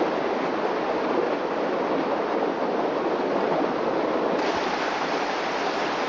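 A high, fast-flowing river rushing steadily, a continuous hiss of moving water that turns a little brighter about four seconds in.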